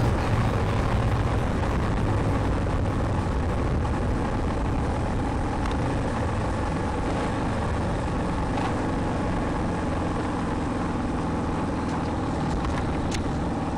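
Honda XLX 350's single-cylinder four-stroke engine running steadily while riding, mixed with a steady rush of wind and road noise.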